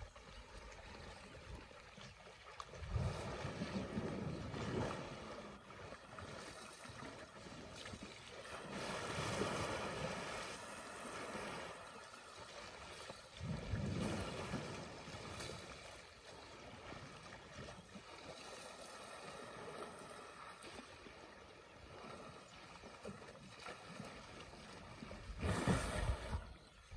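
Water sloshing and splashing as elephants swim and roll in a dam, swelling and fading every few seconds, with a louder surge near the end.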